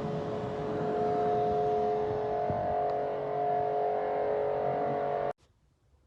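High-pressure water washer (jet pump) running with a steady whine over the hiss of spraying water, used to wash an air-conditioner unit. It stops abruptly about five seconds in.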